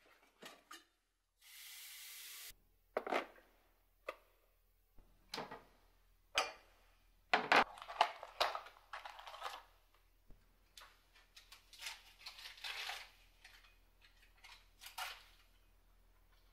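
Household objects being handled: a brief hiss about a second and a half in, then a string of irregular knocks, clinks and rustles.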